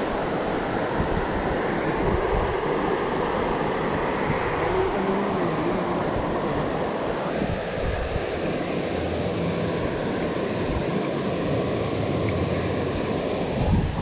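Steady rush of flowing creek water running over rocks and riffles.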